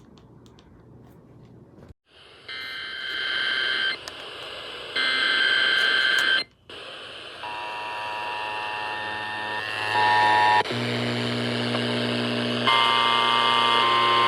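Emergency Alert System alert tones: two short bursts of steady high-pitched electronic tones, then a continuous alarm of several steady tones that grows fuller as lower tones come in toward the end.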